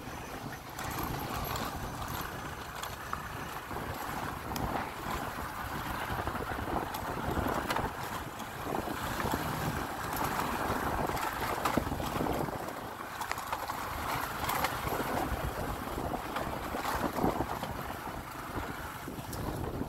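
Motorbike riding along a rough dirt track: the engine runs steadily under wind noise on the microphone, with scattered knocks and rattles from the bumpy ground.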